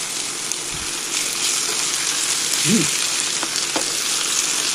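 Gyros meat strips sizzling steadily as they fry in a non-stick pan, with a few light clicks of a metal spatula against the pan a little past the middle.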